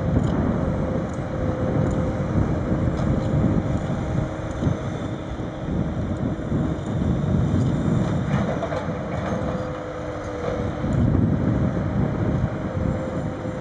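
Sennebogen 870 M material handler at work loading timber: its diesel engine and hydraulics run under load with a steady low rumble and a faint whine, and wind buffets the microphone.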